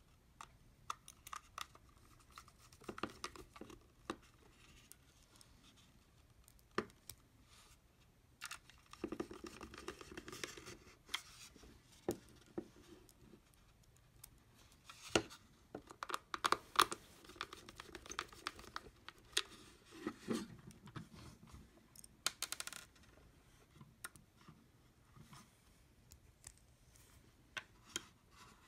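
Plastic shell of a Logitech M570 wireless trackball being handled and fitted together: irregular plastic clicks, taps and short scrapes.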